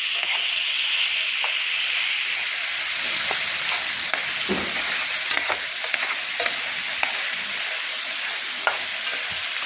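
Small wild birds frying in a pan, a steady sizzle with scattered crackles and spatters.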